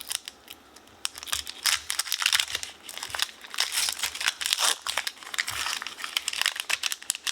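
Foil wrapper of a Pokémon card booster pack crinkling and tearing as it is handled and ripped open, a dense, irregular crackle that starts about a second in.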